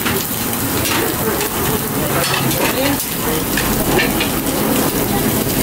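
Meat sizzling steadily over a charcoal grill, a dense crackling hiss with flames flaring from the fat, with a few light clinks of utensils.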